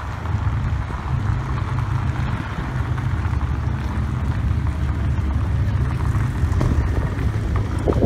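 Mercedes-AMG GT's V8 engine rumbling deep and steady as the car creeps past at walking pace.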